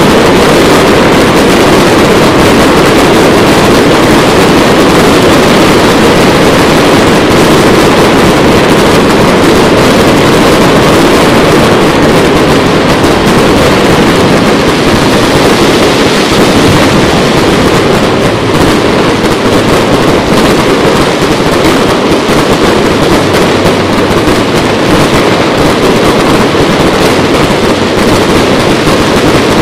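Aerial fireworks display: a dense, continuous barrage of bursts and crackling, loud throughout and easing slightly past the middle.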